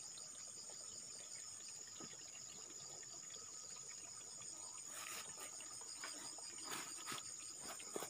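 A steady, high-pitched chorus of insects trilling in the grass, with a few faint clicks in the second half.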